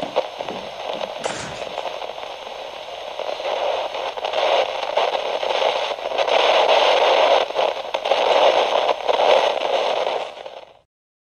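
Crackling static noise, thin and band-limited like an old radio, growing louder through the middle and then cutting off abruptly near the end.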